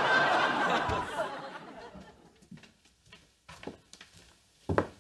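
Studio audience laughing, dying away over the first two seconds. A few faint knocks follow, then a sharper thump near the end.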